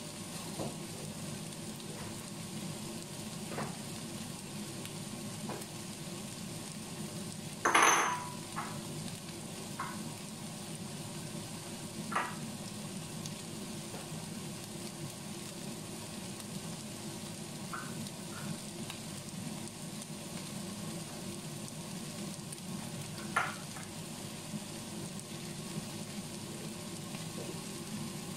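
Bitter melon and egg sizzling steadily in a frying pan, with a few sharp pops and crackles, the loudest about eight seconds in.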